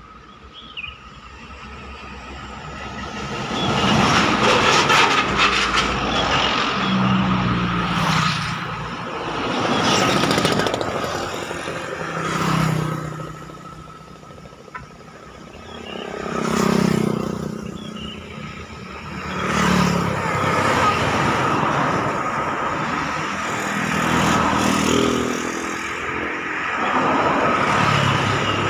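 Roadside traffic: a string of vehicles passing close by one after another, each engine swelling and fading over a few seconds, with buses among them. A faint steady high tone runs underneath.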